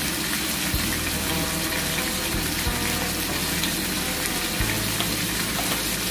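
Quail pieces sizzling steadily as they fry in hot garlic oil in a wok, browning and firming up before coconut water is added to braise them.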